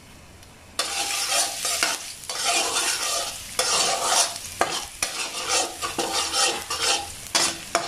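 Chopped garlic sizzling in hot oil in a wok while a metal spatula stirs and scrapes it around. The sizzle starts suddenly about a second in and rises and falls with the spatula strokes, with an occasional click of the spatula on the pan.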